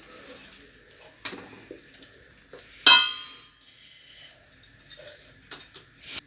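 Kitchen utensils and dishes clinking and knocking, with one loud, ringing metallic clank about three seconds in.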